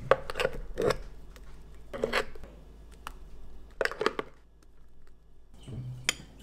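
A spoon scraping thick, frozen smoothie out of a blender jar and into a ceramic bowl, in four short spells of scraping and knocking about two seconds apart.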